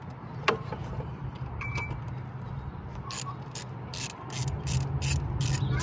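Socket ratchet with an 8 mm socket clicking, a single click early on, then a steady run of about three to four clicks a second from about halfway through, over a steady low hum.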